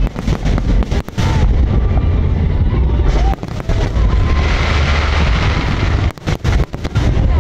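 Aerial fireworks bursting: a rapid string of sharp bangs in the first second and again about six seconds in, with a steady low rumble of booms in between.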